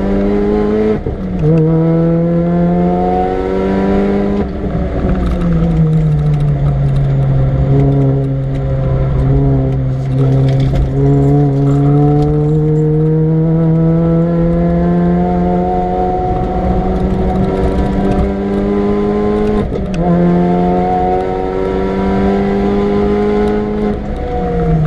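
Supercharged Mini Cooper R53 four-cylinder, fitted with a TVS900 supercharger, driven hard on track. The engine note climbs through the revs, with quick gear changes about a second in and near twenty seconds, and a lift around four to five seconds in followed by a long, slow climb in pitch. The pitch drops again near the end.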